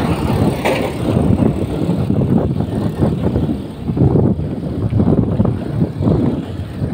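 Wind buffeting the microphone while on the move: a loud, gusty low rumble that rises and falls irregularly.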